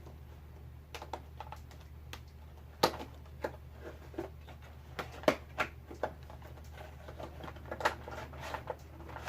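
Irregular clicks and crinkles of an action figure's cardboard box and plastic packaging being handled and opened, with a few sharper snaps about three, five and eight seconds in, over a low steady hum.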